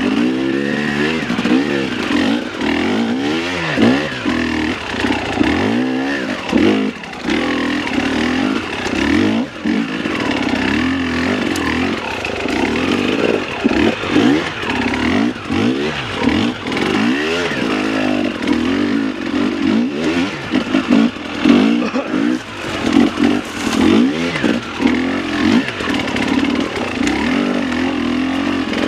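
Two-stroke KTM 300XC dirt bike engine revving up and down over and over as the rider works the throttle on a technical climb.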